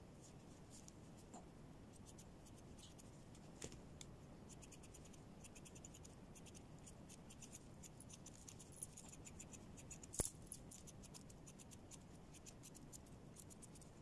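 Scissors snipping through thick dog fur in a quick run of faint snips that starts about four seconds in, with one sharper click about ten seconds in.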